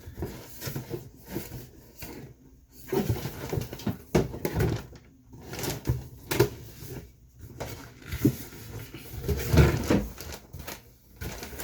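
Cardboard box being opened and handled: irregular scraping, rustling of flaps and short knocks and thumps of cardboard.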